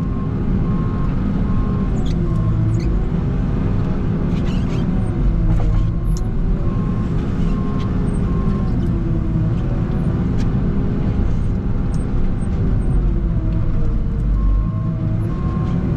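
Farm tractor's diesel engine running while clearing snow, its speed rising and falling as it works. A short high beep repeats about twice a second at times.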